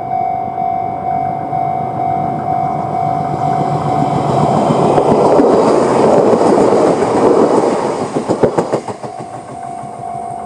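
Chichibu Railway 5000 series train passing over a level crossing, growing loud in the middle and ending with a quick run of wheel clicks over the rail joints as it draws away. Under it the crossing's electronic warning bell rings on a steady repeating tone of the Chichibu type; the train drowns it for a few seconds, and it can be heard again near the end.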